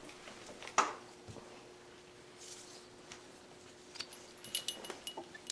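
Battery-powered plush toy dog running, its motor giving a faint steady hum. A sharp click comes about a second in, and a cluster of short clicks and brief thin squeaks comes near the end.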